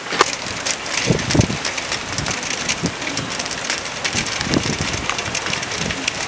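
Rain falling on hard surfaces at the start of a thunderstorm: a steady hiss crowded with many sharp individual drop ticks, and a few dull low thumps scattered through.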